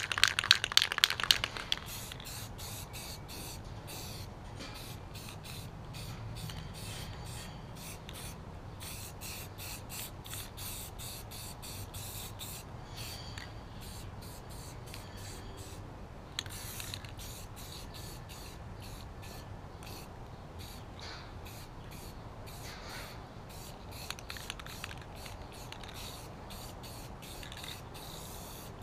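Aerosol rattle can of red spray paint spraying in many short, repeated bursts of hiss. It opens with about a second and a half of loud, rapid rattling.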